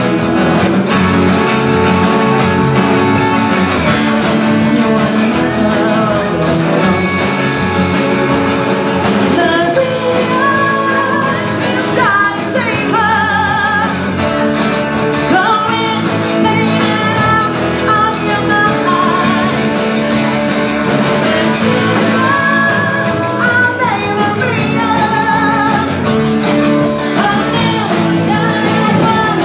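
Live rock and roll band playing: a woman singing lead over electric guitars, electric bass and a drum kit.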